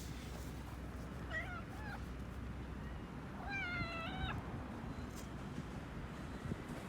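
A cat meowing twice, a short meow followed about two seconds later by a longer, louder one.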